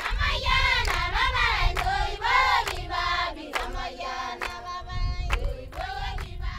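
A group of women singing together in unison, with steady hand clapping about twice a second.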